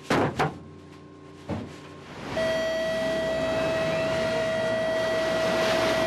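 Heavy thuds of frozen anchovy blocks being unloaded, two together and a third about a second and a half later. About two seconds in, a steady rushing noise with one held tone starts and runs on.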